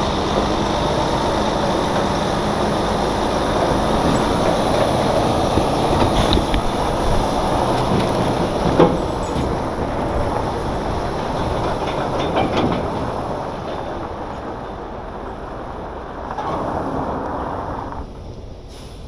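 Heavy truck pulling a fifth-wheel trailer, driving slowly through a turn: steady running noise with a few sharp knocks. It eases off and drops away near the end.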